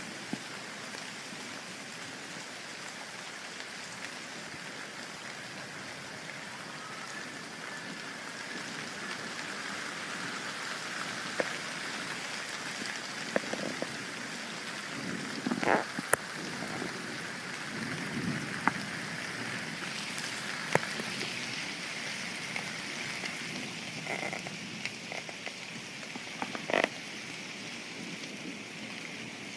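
Rain falling steadily, a little heavier through the middle, with a scattered handful of sharp taps standing out above it.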